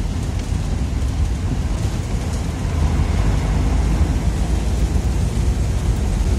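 Steady low rumble of a car driving, heard from inside the car, growing a little louder about halfway through.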